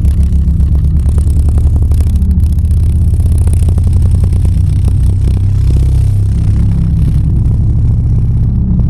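Subwoofer driven with a loud, deep bass drone whose tones shift about five seconds in, with the rapid rattle and splatter of a blood and corn-starch mixture bouncing on the vibrating cone.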